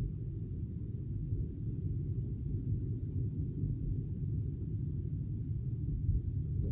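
Steady low rumble inside a moving car's cabin: road and engine noise, even throughout.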